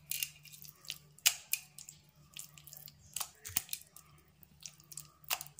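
A hand rubbing wet masala paste into pieces of fish in a bowl: scattered soft wet clicks and squelches at an irregular pace, over a low steady hum.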